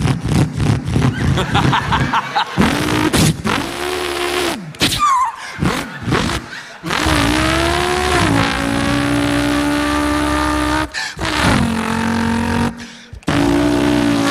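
A man imitating a V8 race car engine with his voice: a rapid stuttering burble first, then long held engine notes that rise and drop as if through gear changes, with two short breaks.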